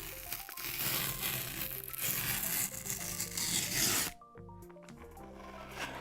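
iPhone box packaging being torn open: a continuous tearing rasp that stops suddenly about four seconds in, over background music.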